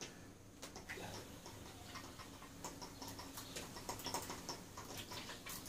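Faint, irregular light ticks and small taps.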